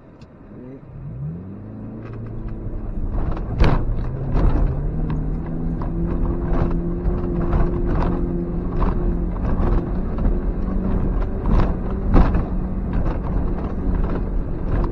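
Suzuki X-90's 1.6-litre four-cylinder engine, heard from inside the cabin, building revs over the first few seconds and then pulling steadily under load up a rough, rutted climb. Repeated sharp knocks and clatters from the car bouncing over the track run through it.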